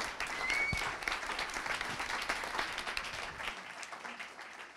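Audience applauding, many hands clapping, dying away over the last second or so. A brief high tone sounds about half a second in.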